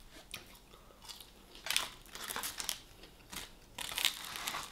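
Close-up eating of a KFC meal: crunchy bites and chewing in two main bouts, about two seconds in and near the end.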